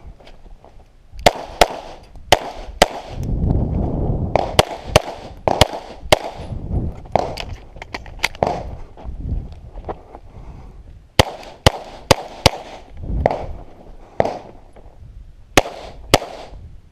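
A string of pistol shots fired during an IDPA stage, mostly in quick pairs, with pauses of a second or more between groups as the shooter moves between targets.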